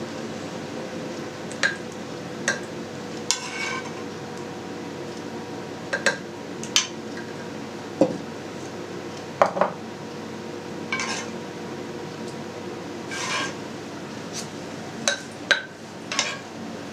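Metal spoon clinking and scraping against a frying pan and clay pots as thick sauce is spooned into the pots: a dozen or so irregular, briefly ringing clinks, with one duller knock about eight seconds in, over a steady low hum.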